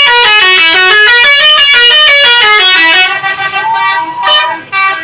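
A bus's multi-tone telolet horn playing a fast, loud melody, with the notes stepping up and down several times a second. About three seconds in, the run breaks into shorter separate blasts.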